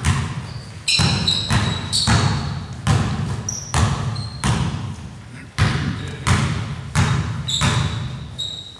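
Basketball being dribbled on a gym floor, steady bounces a little under one a second, ringing in the large hall. Short, high sneaker squeaks come between the bounces.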